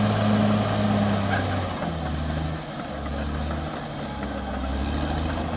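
Diesel engine of a Caterpillar D6R XL bulldozer running steadily, its note dropping to a lower pitch about two seconds in.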